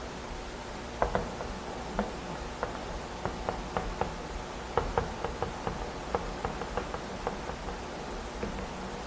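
Chalk tapping on a blackboard as Chinese characters are written stroke by stroke: a run of irregular light clicks, a few of them sharper, over a faint steady hiss.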